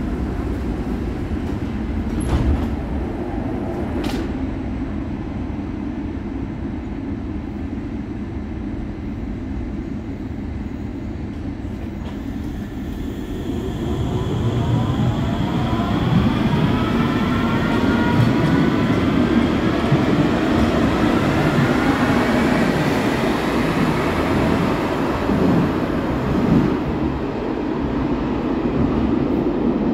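High-floor Stadtbahn light-rail train in an underground station: a steady rumble with two sharp knocks about two and four seconds in, then from about halfway the train pulls away, its traction motors whining in several tones that rise together as it picks up speed.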